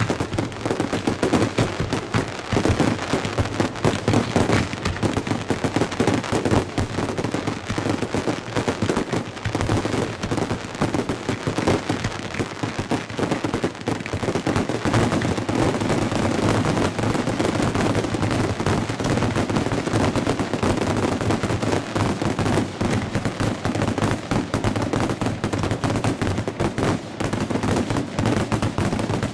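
Fireworks grand-finale barrage heard close to the firing site: rapid, overlapping launches and shell bursts from mortars and cake batteries, a dense rattle of shots with no break.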